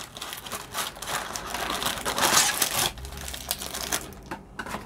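A cardboard Topps baseball-card box being torn and pried open by hand, a crackling, crinkling rip of card stock that is loudest about two seconds in.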